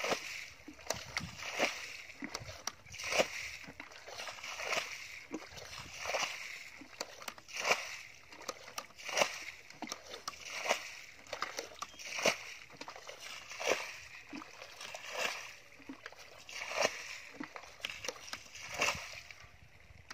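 A bucket scooping muddy water and flinging it out, one splash about every second and a half. This is a shallow muddy pool being bailed out by hand to strand the fish.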